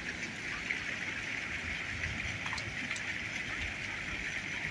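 Steady, even outdoor hiss, with a few faint clicks about halfway through.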